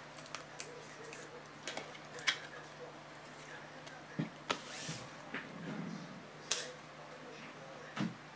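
Sparse light clicks and taps, one every second or two, over a faint steady low hum, with a sharper tap near the end.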